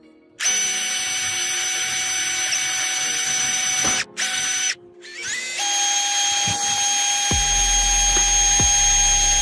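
Electric drill motor whining at steady speed as the bit drills into steel. It cuts off twice near the middle, then spins back up, rising briefly in pitch. In the last couple of seconds a low rumble with regular knocks joins the whine as the bit bites into the metal.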